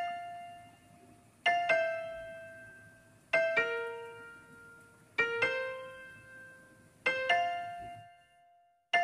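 Background music: slow piano chords, five of them about two seconds apart, each struck and left to ring and fade.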